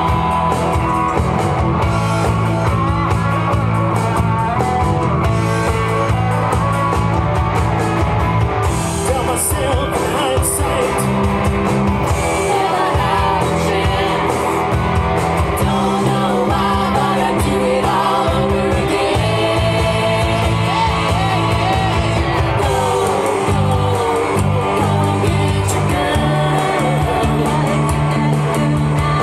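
Live rock band playing a song: several voices singing together over acoustic and electric guitars and drums.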